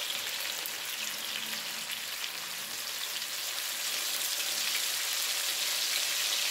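Marinated chicken pieces frying in oil on a wide tawa, sizzling and crackling steadily as a thin marinade is poured over them. The sizzle grows louder through the second half.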